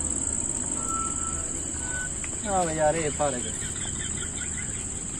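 Steady high-pitched trilling of insects in a field, unbroken throughout. About halfway through, a short voice sound in three quick pulses rises over it.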